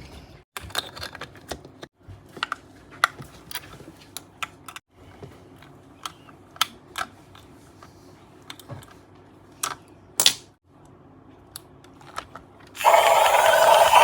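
Plastic packaging and toy parts being handled during an unboxing: scattered sharp clicks, taps and rattles. Near the end a loud, steady harsh noise takes over.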